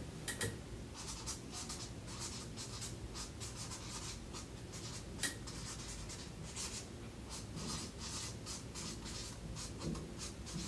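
Faint scratching of handwriting, a pen writing in many short strokes.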